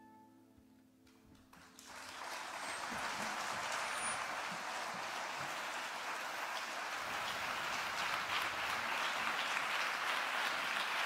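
The final note of the bandura and cello rings out and fades, then about two seconds in an audience breaks into applause that swells quickly and holds steady.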